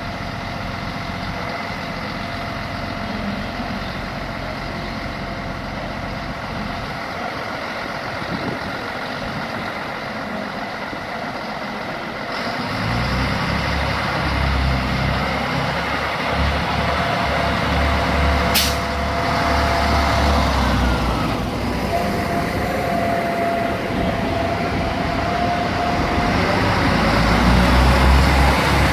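Diesel engine of an SNCF TER X 73500-type railcar (Alstom Coradia A TER) idling, then opening up and getting louder and deeper about twelve seconds in as the railcar pulls away past the platform. One sharp click about two-thirds of the way through.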